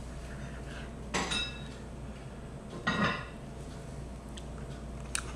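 A metal utensil clinks against kitchenware twice, about two seconds apart, each clink ringing briefly.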